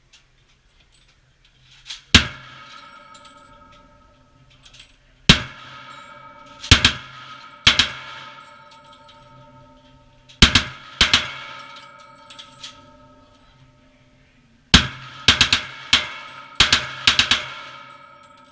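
Gunshots from a machine gun fired one at a time and in small quick groups, about a dozen in all, starting about two seconds in and closest together near the end. Each shot is followed by a metallic ringing that fades over a second or two.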